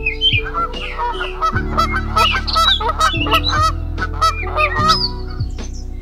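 Many birds calling at once in quick, short, overlapping calls, over background music of slow sustained chords.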